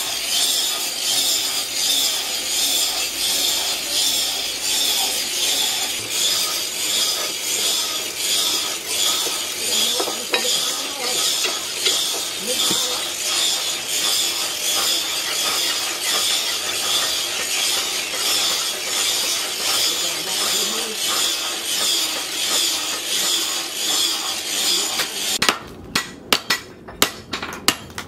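Leaf-spring steel knife blade being sharpened by hand on a wet sharpening stone: steady, rhythmic back-and-forth scraping strokes. Near the end the scraping stops and gives way to a fast run of sharp chops, the knife cutting into bamboo on a wooden block.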